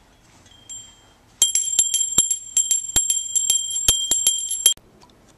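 A handbell rung rapidly, about four strokes a second, for some three seconds, then stopped suddenly. A single faint ding comes just before it.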